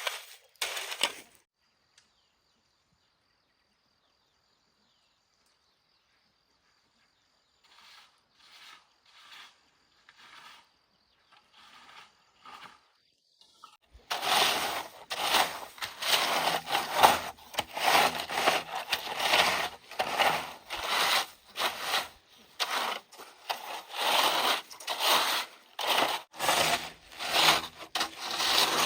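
Several seconds of near silence, then faint scraping strokes, then from about halfway loud, irregular scraping and rubbing strokes coming in quick succession.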